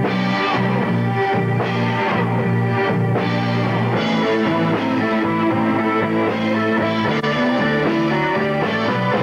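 Progressive rock band playing live in rehearsal: electric guitar and keyboards over bass and drums, sustained chords with a moving bass line.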